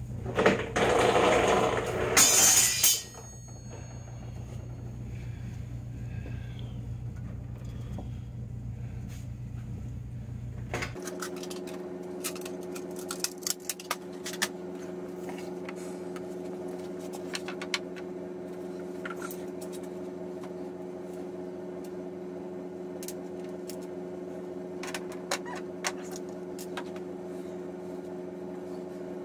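Hand tools and hardware being handled on the snowmobile's tunnel while brackets are bolted down. A loud rustling clatter lasts about three seconds, then light metallic clicks come now and then over a steady low hum, and the hum changes abruptly about eleven seconds in.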